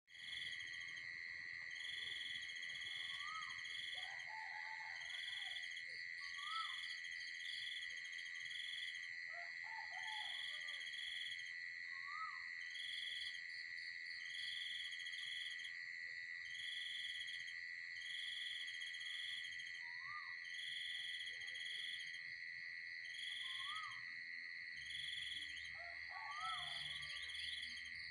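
Night insects, crickets and cicadas, keep up a steady high drone with a regular pulsing chirp about once a second. Short bird calls break in every few seconds.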